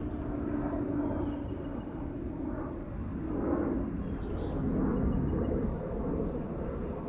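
Steady low rumble of distant road traffic, with a few faint high bird chirps now and then.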